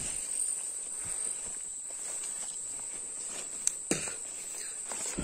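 Footsteps through leafy forest undergrowth, with a couple of sharp snaps about four seconds in, over a steady high-pitched insect drone.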